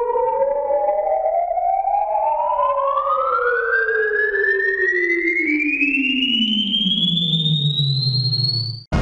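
Electronic sci-fi sound effect: two smooth tones slide in opposite directions, one rising steadily from low to high while the other sinks to a low hum, crossing about two seconds in. It cuts off suddenly near the end.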